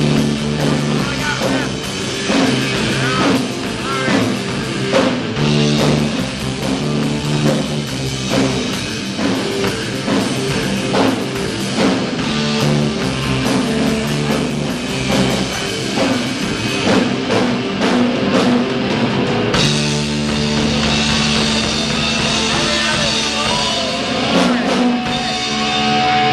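Live rock band playing an instrumental passage on electric guitar, electric bass and drum kit. About twenty seconds in the playing changes from a choppy beat to a steadier, brighter wash.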